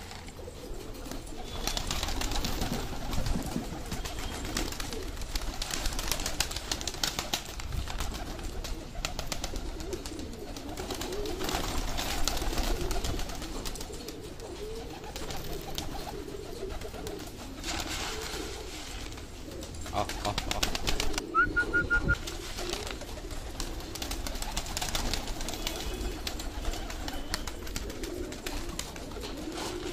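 A flock of domestic pigeons cooing steadily while feeding, with recurring bursts of rustling every few seconds.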